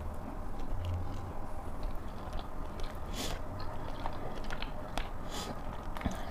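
A person chewing a mouthful of noodles close to a clip-on microphone, with scattered soft wet mouth clicks and a few brief smacks.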